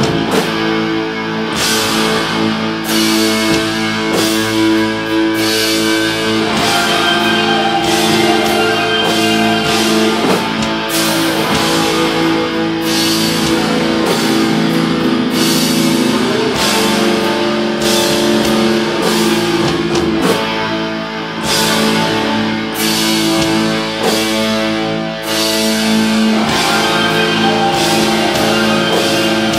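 Live black metal band playing: distorted electric guitars holding sustained chords over steady drum hits, with keyboards in the mix.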